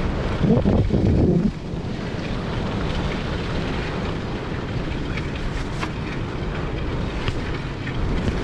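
Wind buffeting the microphone over the steady rumble of a wheel rolling on a dirt road as a dog team pulls it. A brief louder sound rises about half a second in and drops away about a second later, with a few faint clicks after it.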